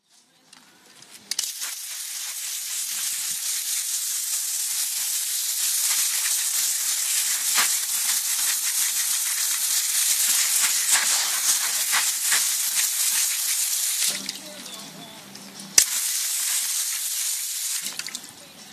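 Jet of water spraying onto an alloy wheel and the ground around it, a steady loud hiss. It stops briefly, starts again with a sharp click, then cuts off near the end.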